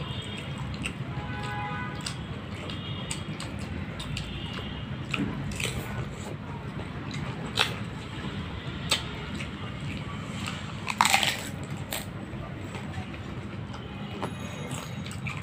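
Crisp fuchka (panipuri) shells being bitten and crunched with wet squishing, scattered sharp cracks and one louder burst about eleven seconds in, over a steady low background hum.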